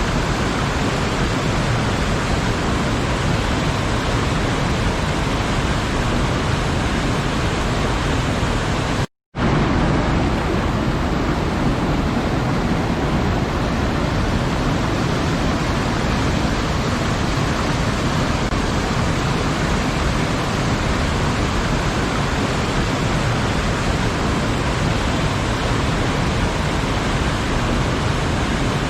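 Waterfall rushing steadily, a constant, even roar of falling water, broken once by a sudden split-second gap of silence about nine seconds in.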